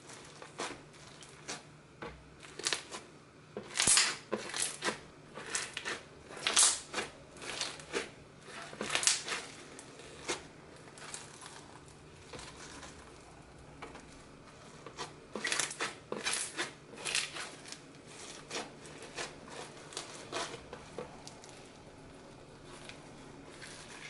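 Floam slime, slime packed with tiny polystyrene foam beads, crunching and popping as hands squeeze and stretch it. The sharp crackles come in irregular clusters, thickest in the first half and again a little after the middle, with quieter spells between.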